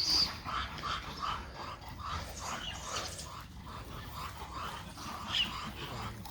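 Baby monkey crying: a run of short, repeated whimpering calls, two or three a second, with a sharper high squeal at the start and another near the end.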